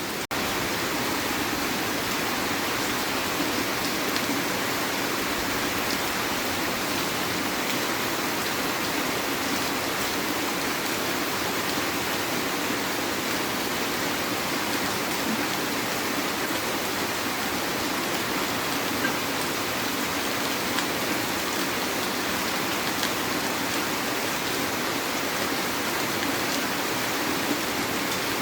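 Heavy rain falling steadily: a dense, even hiss of rain with a few faint drop ticks.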